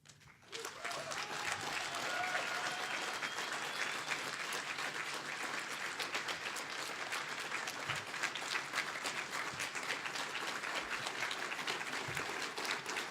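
Audience applauding steadily, beginning about half a second in as a speech ends, with a few faint voices calling out in the first seconds.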